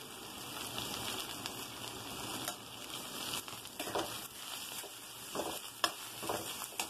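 Taro root (arbi) pieces sizzling steadily in hot oil in a kadai, with a steel spatula scraping and stirring them in several short strokes in the second half.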